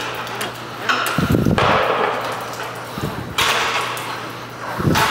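Steel drain-snake cable being handled and coupled: scraping and rattling of the coiled cable, with a few dull thuds, one of them near the end.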